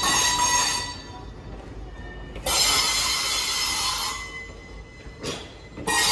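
Indian Railways passenger coaches going by, their steel wheels screeching in high-pitched squeals over a low rolling rumble. The squeal comes in three surges: one at the start, one from about two and a half to four seconds in, and another near the end.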